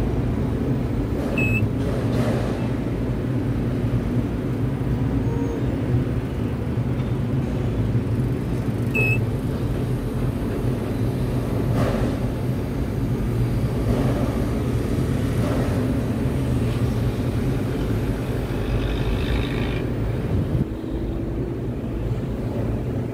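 Tower crane machinery running with a steady low hum and rumble as the jib slews, with two short high beeps, one about a second and a half in and one about nine seconds in.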